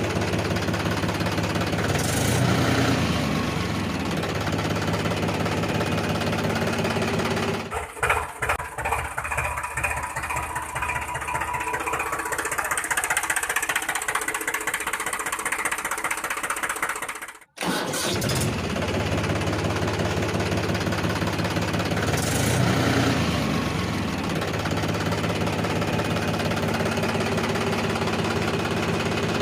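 An engine running steadily, turning rougher and uneven for several seconds in the middle, cutting out abruptly about 17 seconds in and then running steadily again.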